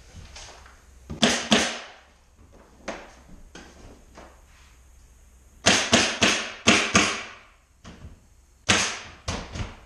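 Pneumatic staple gun firing staples into hard underlayment over a subfloor, each shot a sharp clack: two about a second in, five in quick succession around the middle, and three near the end.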